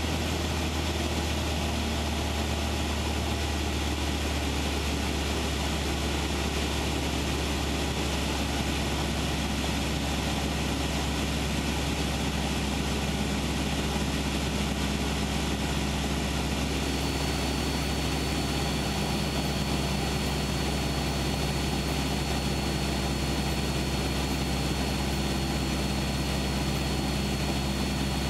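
Cessna 172's piston engine and propeller droning steadily, heard from inside the cabin. A thin, high, steady whine joins in about two-thirds of the way through.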